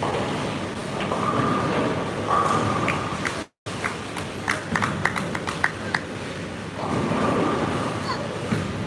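Bowling alley din: bowling balls rolling down the lanes with a steady rumble, and a quick run of sharp clacks of pins being struck about halfway through, with music in the background. The sound cuts out for a split second shortly before the clacks.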